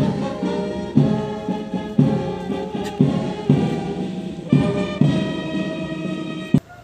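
Brass band playing a ceremonial salute tune, with a drum hit about once a second. It stops abruptly near the end as the salute finishes.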